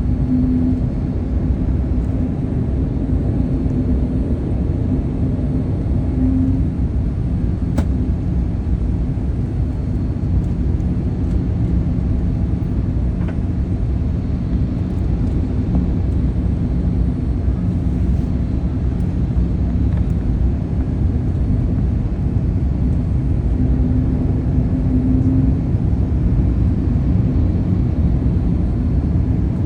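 Steady low rumble inside the cabin of a Boeing 787 airliner, with a faint steady hum from its engines and systems.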